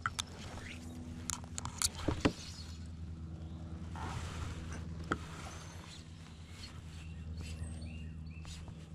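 Steady low motor hum, with a handful of sharp clicks and knocks in the first couple of seconds and another about five seconds in.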